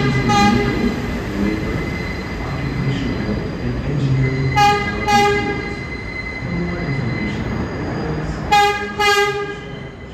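An R188 subway train approaching slowly on elevated track, sounding its horn in three pairs of short blasts about four seconds apart, over the low rumble of the train and a thin steady squeal from the wheels.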